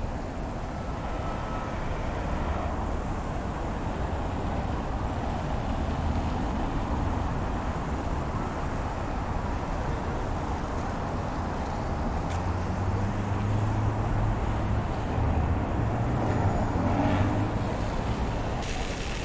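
City street ambience of passing traffic. A vehicle's low engine hum grows louder in the second half.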